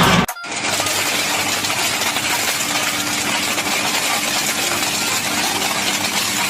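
A scrap-crushing machine running steadily, its motor humming under a dense metallic rattling clatter.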